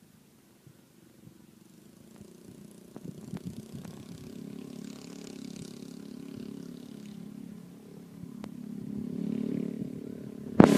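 An engine running and gradually growing louder, with a few faint clicks along the way; near the end a sharp knock and a sudden jump to a much louder sound.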